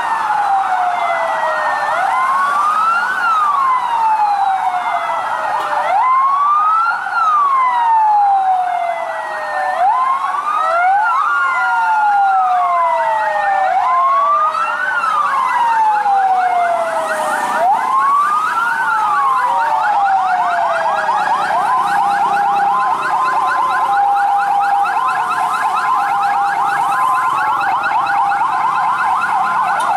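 Several emergency-vehicle sirens sounding together. Slow wails rise and fall every few seconds over a fast yelp, and about two-thirds of the way in a two-tone hi-lo siren joins.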